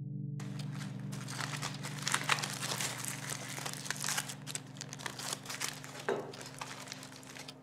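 Aluminium foil food wrapping crinkling as it is handled and unwrapped, starting suddenly about half a second in and going on in quick irregular crackles.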